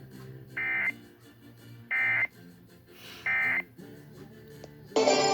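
Emergency Alert System end-of-message data signal: three short bursts of warbling digital tones, a little over a second apart, closing the Amber Alert broadcast. Faint background music runs under it, and loud music starts just before the end.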